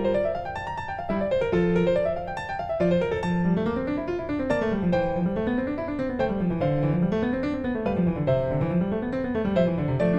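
Background piano music playing flowing arpeggios that climb and fall again and again.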